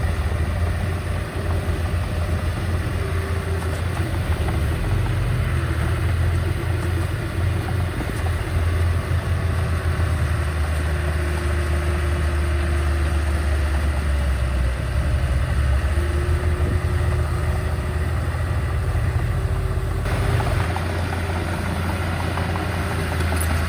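Heavy-equipment diesel engine running steadily, deep and low-pitched, with an abrupt shift in the sound about twenty seconds in.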